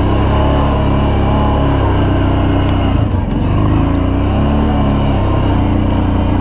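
Kawasaki Brute Force ATV's V-twin engine running under way, heard from the rider's seat. Its note dips briefly about three seconds in, then climbs again as the throttle comes back on.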